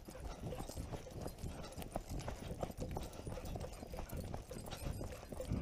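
Footsteps on a grassy dirt track, a run of dull thuds from someone walking briskly.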